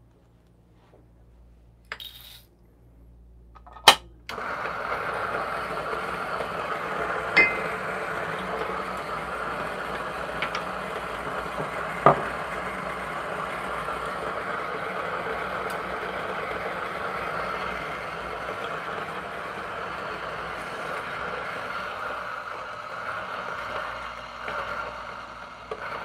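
Niche Zero conical burr coffee grinder grinding an 18 g dose of espresso beans: after a couple of clicks, the motor and burrs start about four seconds in and run steadily for about twenty seconds, with a few sharp cracks, tailing off near the end.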